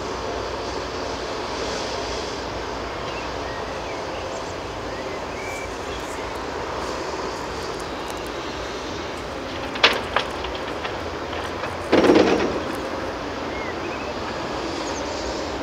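Diesel engines of a Caterpillar 330F excavator and a tractor running steadily. About ten seconds in come a couple of sharp metal clanks. About twelve seconds in there is a loud crash as a bucket of earth and stones drops into the steel body of the dump trailer.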